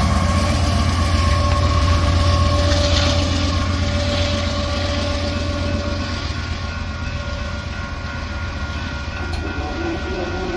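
Freight train rolling past: a steady low rumble of the cars on the rails, with a few thin steady tones above it, slowly growing quieter.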